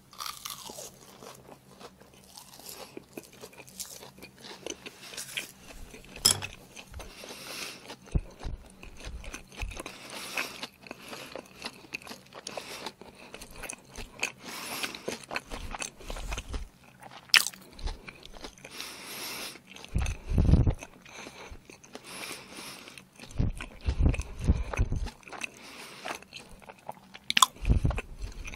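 Close-miked biting and chewing of a pan-fried sea-worm pancake (jeon), full of sharp little crunches and clicks from the mouth. A few louder low thumps come in the second half.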